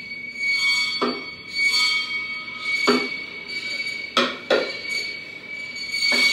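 Drum kit played in free improvisation: a steady high metallic squealing ring is held throughout, broken by about five sharp, ringing hits on the drums.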